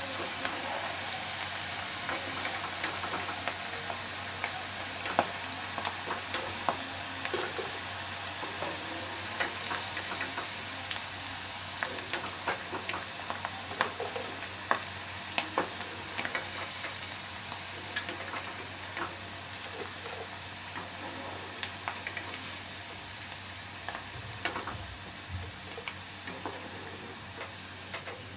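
Spice- and flour-coated potato pieces deep-frying in hot oil at golden brown: a steady sizzle with frequent sharp clicks and pops, fading a little near the end.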